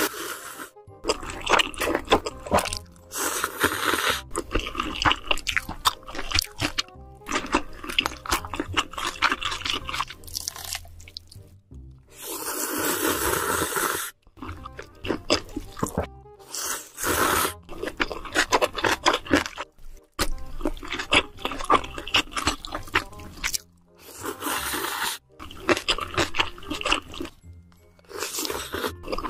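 Close-miked eating of spicy stir-fried noodles: wet slurps and chewing full of sharp crunchy clicks, with one long slurp of about two seconds near the middle.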